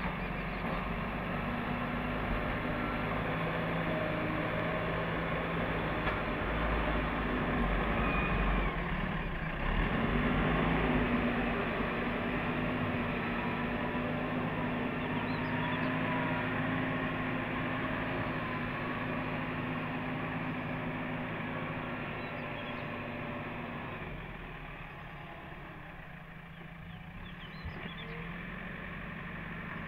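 JCB backhoe loader's diesel engine running under load while it works soil with its front bucket. The engine is loudest about a third of the way in, then settles and drops to a lower, quieter note near the end.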